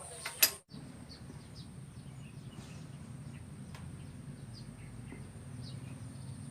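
Background ambience: short bird chirps repeating over a steady low hum and a thin high whine, with a sharp click about half a second in.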